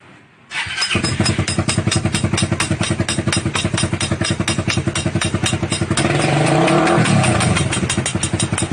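A small engine running with a fast, even train of firing pulses, starting about half a second in. It briefly revs up and back down around six to seven seconds in.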